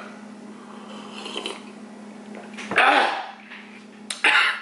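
Faint sipping of a scalding hot drink from a foam cup, then a loud wordless vocal reaction to the heat about three seconds in and a shorter one near the end, over a steady low hum.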